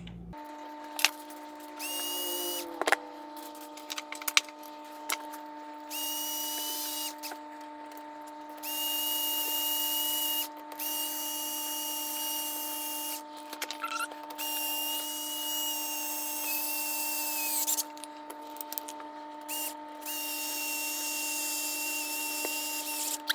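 Small electric screwdriver running in short start-stop runs of one to three seconds, about seven times, driving small screws into a 3D-printed plastic part. A few sharp clicks fall between runs, over a steady hum.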